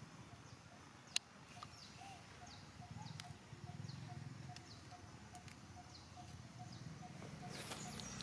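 Background birdsong: short high chirps sliding downward, repeated every half second or so, over a steady series of faint low notes about three a second. A single sharp click about a second in.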